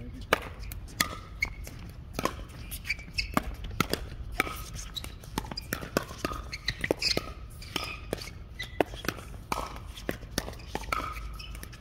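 Pickleball paddles striking a plastic pickleball during a doubles rally: a string of sharp pops at uneven intervals, some loud and close, others fainter.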